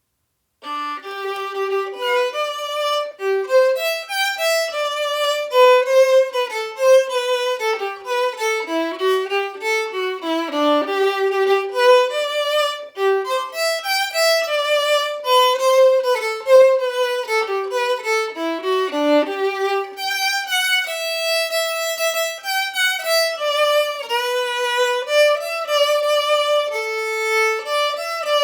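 Solo violin playing a lively melody, starting about half a second in, with occasional two-note chords.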